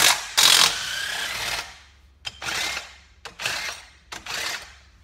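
Cordless impact tool running in short bursts, spinning the 14 mm cylinder head bolts out of an ATV engine's head. The longest burst is about a second, near the start, followed by several shorter ones.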